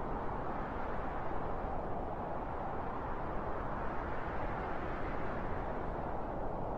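Soft wind blowing steadily: an even, low rushing noise without gusts or breaks.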